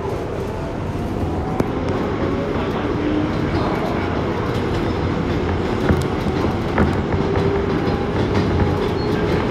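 New York City Subway 7 express train running on elevated track, heard from inside the car: a steady rumble of wheels on rail with a few sharp clicks, growing slightly louder.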